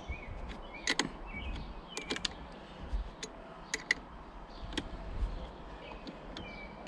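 Irregular small metallic clicks and taps of a half-inch wrench working the nuts on a boat battery's terminal clamps as they are snugged down.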